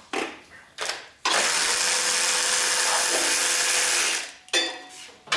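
A power tool runs steadily for about three seconds, with a hissing whir, after two short knocks.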